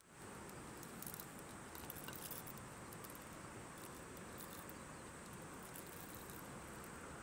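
Coffee beans tipped from a brass canister into a stainless steel hand coffee grinder, a light scattered rattle of beans, mostly in the first half, over a steady faint outdoor hiss.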